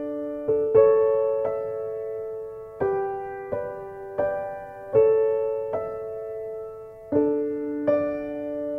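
Slow, gentle background music: single keyboard notes struck one after another, each ringing and fading before the next.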